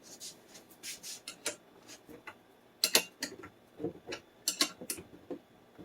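Four mounting bolts being tightened with a hand tool: a string of short, irregular metal clicks and ticks, a few every second, with a louder cluster of clicks about three seconds in.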